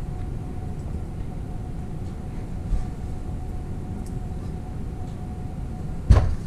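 Steady low workshop rumble with a faint hum and light handling noise, and one sharp knock about six seconds in as the motorcycle wheel is shifted on the workbench.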